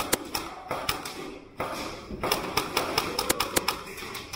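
Airsoft guns firing during an indoor close-quarters game: about a dozen irregular sharp snaps, with a short lull about a second and a half in.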